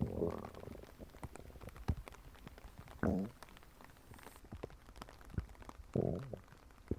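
Stomach gurgling: three short bubbly gurgles about three seconds apart, at the start, about three seconds in and about six seconds in, with faint crackling clicks between them.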